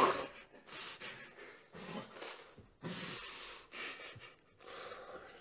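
A man's quiet breathy snickers through the nose, short puffs of breath about a second apart.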